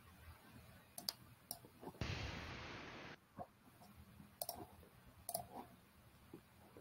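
Faint scattered clicks, about half a dozen, picked up over a video-call microphone, with a burst of hiss lasting about a second that starts and stops abruptly about two seconds in.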